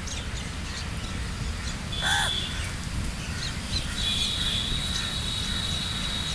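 A crow gives a single short, harsh caw about two seconds in. A steady high-pitched insect drone is heard briefly with the caw and then again from about four seconds in, over a low background rumble.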